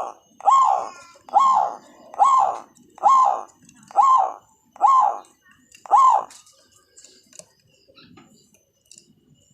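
Zebra dove (perkutut) giving a series of about eight identical short call notes, each rising then falling in pitch, under a second apart, stopping about six seconds in.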